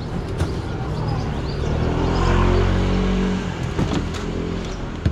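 A motor vehicle's engine running close by, growing louder about two seconds in and fading again after about a second and a half, as a vehicle passing on the street would. Light clicks of handling come on top of it.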